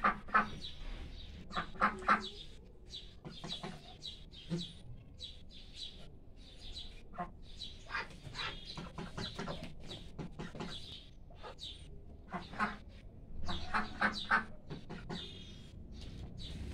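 A flock of white Pekin ducks quacking in many short, overlapping calls at an irregular pace, thicker in a few bursts, as frightened ducks do.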